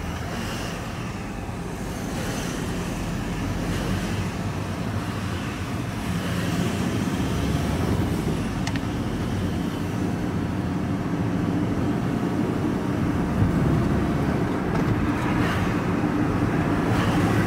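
Engine and tyre noise heard from inside a moving vehicle's cab: a steady low drone that grows slightly louder as the drive goes on.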